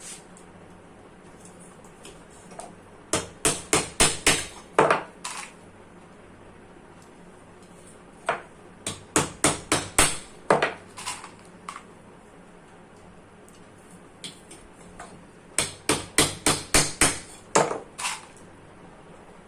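Hammer blows on the metal bush and shaft of an air-cooler motor. They come in three runs of quick, sharp strikes, about eight to a run, with a few seconds' pause between runs.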